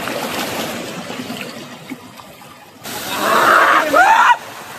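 Rushing waterfall water, a steady noise that suddenly grows louder and closer about three seconds in. Near the end comes a short rising-then-falling cry.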